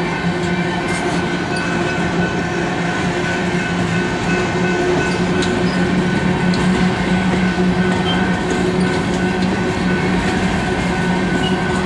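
Covered hopper cars of a freight grain train rolling past: a steady rumble of steel wheels on rail with a constant hum and a few scattered clicks.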